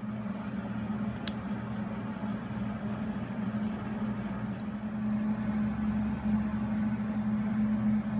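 A steady machine hum with a low drone, unchanging throughout, with two faint ticks, one about a second in and one near the end.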